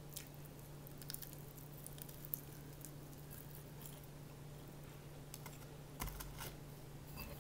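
Faint chewing of crispy fried chicken: small, scattered crunchy clicks over a steady low hum. About six seconds in, a brief louder rustle and knock as a hand reaches into a paper takeaway box.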